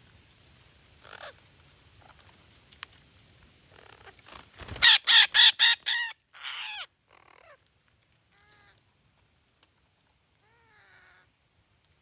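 Parakeets calling at a tree-hole nest: a fast run of five or six loud, harsh screeches about five seconds in, then fainter single calls spaced out over the next several seconds.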